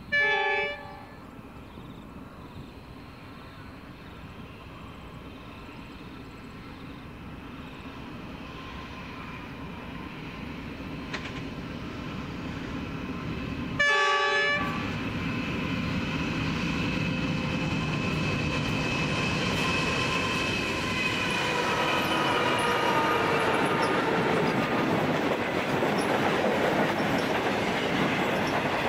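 A diesel freight train's horn sounds two short blasts, one at the very start and another about fourteen seconds in, as two Pacific National NR-class (GE Cv40-9i) locomotives approach. Their engine noise grows steadily louder and drops slightly in pitch as they pass. Near the end the container wagons roll by with a clickety-clack of wheels on the rails.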